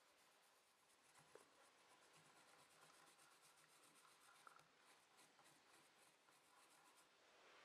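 Pencil scribbling rapidly on paper laid over a coin to make a coin rubbing: a faint, fast, even scratching of the lead that starts about a second in and stops shortly before the end.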